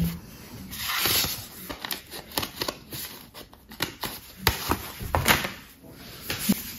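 Paper and gift packaging being handled and unwrapped: rustling and crinkling, with a louder rustle about a second in and many light clicks and taps.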